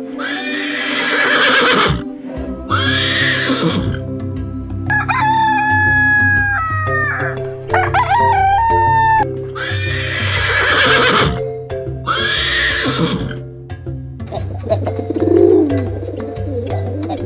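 A rooster crowing repeatedly, several loud hoarse crows, over background music with a steady bass beat.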